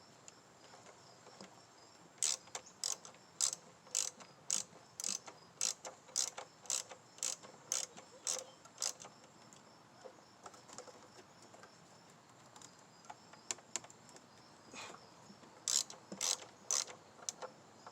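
Ratchet wrench clicking as the nut holding a new ignition coil is run down and tightened. It comes in runs of sharp clicks about two a second, with a sparse stretch in the middle and another quick run near the end.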